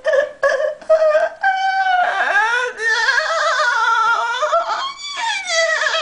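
A high-pitched voice making a few short laugh-like bursts, then long wavering cries.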